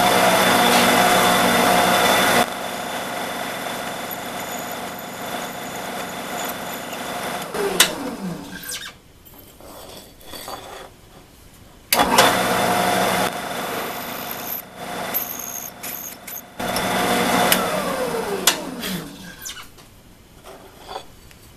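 Drill press motor switched on, running steadily while a twist bit drills an aluminium plate, then switched off and winding down with a falling pitch about eight seconds in. It starts again suddenly about twelve seconds in and winds down again near the end.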